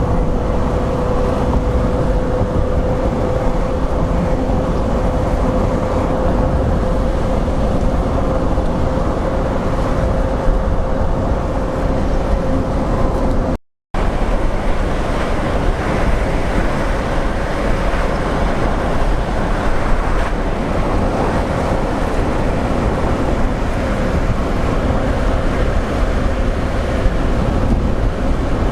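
A car driving, with steady engine and road noise and a faint constant hum. It cuts out to silence for a moment about halfway through, then resumes unchanged.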